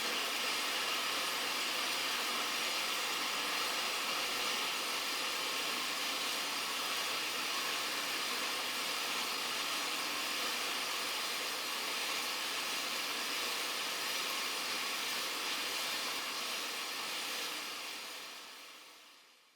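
Sound sculpture of 1944 prepared DC motors spinning small metal discs against MDF panels: a dense, steady hiss of countless discs rattling at once, like rain. It fades out near the end.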